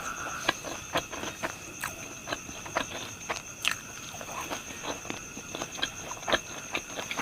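Close-up chewing of crispy fried pork intestines: irregular crunches and wet mouth clicks, roughly two a second. A steady high whine runs underneath.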